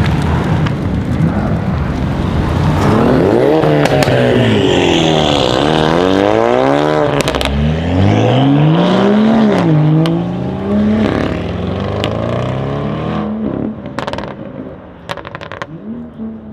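Alfa Romeo Giulia Quadrifoglio's 2.9-litre twin-turbo V6 accelerating hard, its pitch climbing and dropping back with several quick upshifts. About eight seconds in another engine winds up from low revs. Near the end the engine sound fades and a few sharp cracks are heard.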